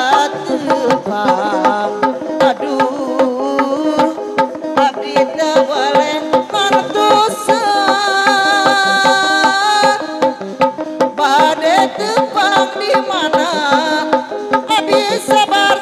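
Sundanese benjang procession music: a dense, fast hand-drum (kendang) rhythm with gongs and a wavering, held melody line above it, played loud and without a break.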